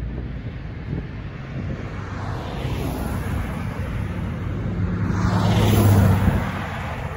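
A car passing close by on the road: engine hum and tyre noise swell to a peak about six seconds in, then fade.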